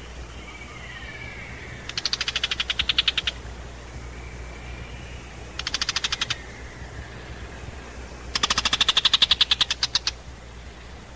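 Tiger shrike giving harsh, rapid chattering alarm calls in three bursts of about a dozen notes a second, the last the longest and loudest: scolding and mobbing an eagle-owl that has entered its territory.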